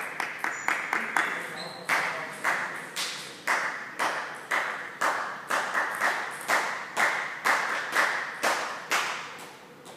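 A table tennis ball bounced over and over, each bounce a sharp click with a short ring in a large hall: quick bounces for the first second or so, then a steady two a second, stopping just before the end.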